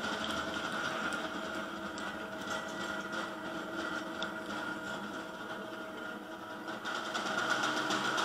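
Live gong and percussion ensemble music: gongs ring with held tones over a rapid, light tapping rhythm, which grows louder and busier near the end.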